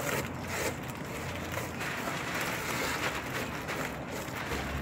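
Wet cement mix sliding and being scraped by hand out of a plastic bucket onto bricks and rubble: a steady scraping, rustling noise.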